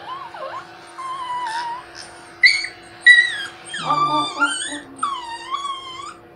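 A small dog whining and whimpering in a run of rising and falling cries, sparse at first and closer together in the second half, while its paws are trimmed, a sign of its dislike of having its feet handled. An electric pet clipper hums steadily underneath.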